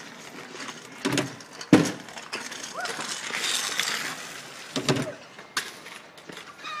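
Kick scooter clattering over tarmac: a few sharp knocks from the deck and wheels, with the rush of the wheels rolling in between.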